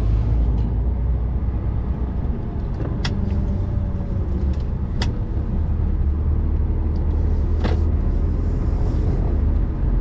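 Articulated lorry's diesel engine and road noise heard inside the cab while driving in traffic: a steady low rumble. Three short sharp clicks or knocks come about 3, 5 and 8 seconds in.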